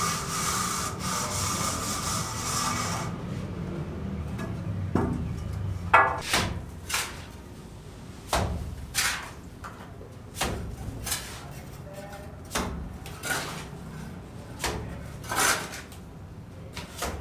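Hand work on wood: a steady scraping noise that stops about three seconds in, then a string of separate short scraping strokes, roughly one a second and unevenly spaced.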